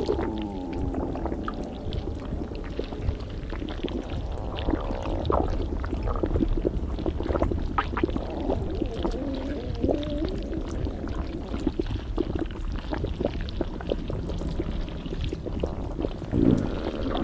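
Stomach gurgling and rumbling, close up as if from inside the belly: a constant low rumble with tones that glide up and down and many small pops and clicks.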